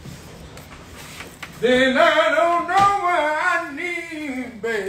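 A person singing a wavering, drawn-out melodic line without accompaniment. It starts about a second and a half in and trails off near the end, after a quiet stretch of room sound.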